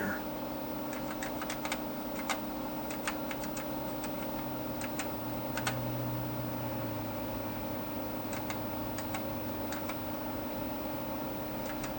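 Keys on the Dimension 68000 computer's keyboard clicking in quick, uneven presses as Tetris pieces are steered and dropped, over a steady electrical hum.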